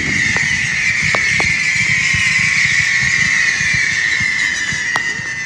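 Fireworks display: a sustained shrill whistle from a volley of whistling fireworks, sliding slowly down in pitch, with scattered pops and crackles underneath.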